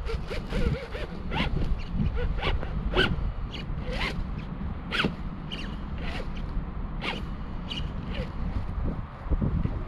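Electric motors and geartrains of scale RC crawler trucks whining in short stop-start throttle bursts, the pitch rising and falling with each burst as the trucks crawl over rocks and timbers.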